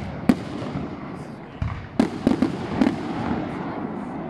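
Fireworks display: shells bursting with a sharp bang near the start, another about two seconds in followed by a quick run of smaller bangs, over a continuous low rumble and crackle of further bursts.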